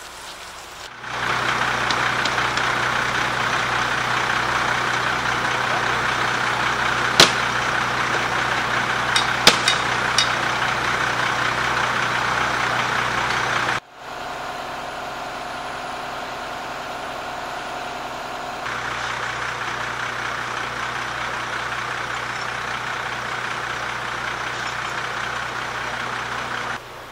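A fire engine idling, a steady engine hum that carries on across several abrupt cuts, with a few sharp clicks partway through.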